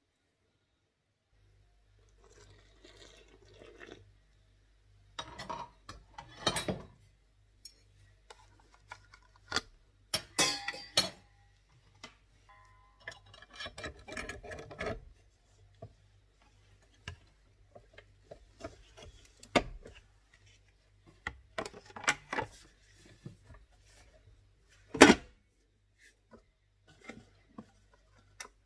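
Clinks, knocks and clicks of a stand mixer being set up: a metal dough hook handled and fitted over a stainless steel bowl of flour, and the head and plastic splash guard brought down into place, with one sharp click near the end.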